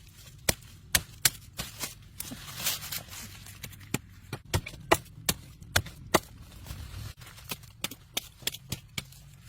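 A run of sharp chopping strikes, a blade hitting something hard, irregular at about two a second. A brief rustle comes nearly three seconds in.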